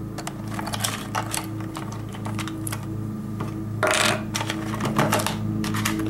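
Irregular light clicks and clatter of wire test leads and alligator clips being handled, with a short rustle about four seconds in, over a steady low hum.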